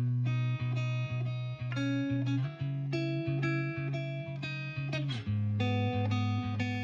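Background music: a plucked guitar melody over a bass line.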